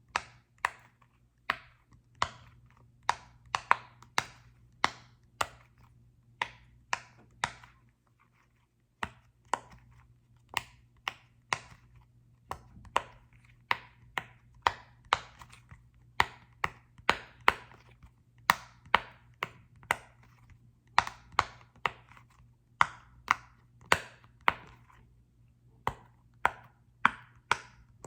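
Sharp taps on a small soccer-ball-shaped object, about two a second in an uneven rhythm, with a short pause about eight seconds in.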